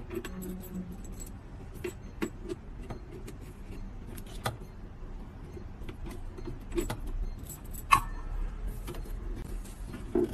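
Scattered small clicks, taps and rattles of a cable and its round metal plug being handled and fitted into a socket on a desktop inkjet printer, with a sharper knock about eight seconds in.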